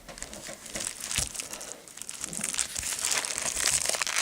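Packaging crinkling as it is handled, busier and louder in the second half.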